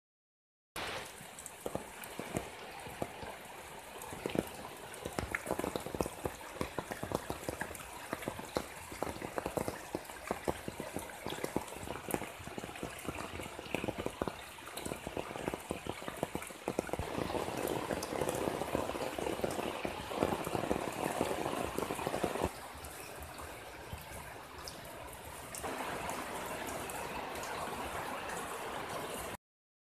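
Heavy rain falling into muddy runoff water flowing over a path, dense with the patter of drops striking the water. The sound shifts several times, at about 17, 22 and 26 seconds in, and stops abruptly just before the end.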